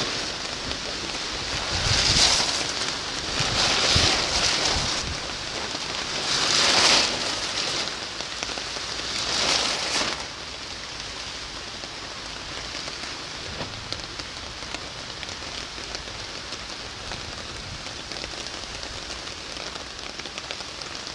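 Strong wind gusting in four loud surges over the first ten seconds, then easing to a steady, quieter hiss of rain.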